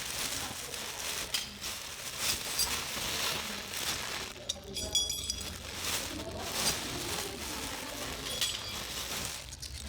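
Handling of a grinder and its packaging: rustling and rubbing with scattered light clicks and metallic clinks, one clink ringing briefly about five seconds in.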